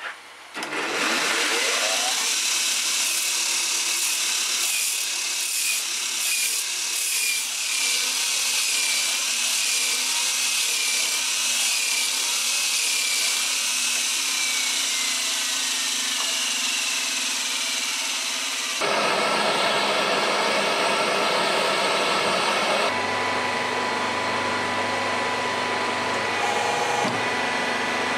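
Belt grinder with a sanding belt starts up, rising in pitch, and grinds the flat of a steel blade: a loud, steady grinding hiss with a high wavering whine that later slides down in pitch. About nineteen seconds in, it gives way abruptly to a different steady machine noise.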